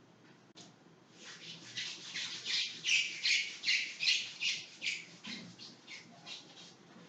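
Whiteboard being wiped with a felt eraser in quick back-and-forth strokes, each stroke a high squeak, about two or three a second, loudest in the middle and thinning out near the end.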